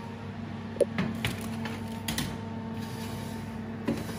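Metal roasting tin being put into an oven: a few sharp clunks and knocks of metal against the oven rack, over a steady hum.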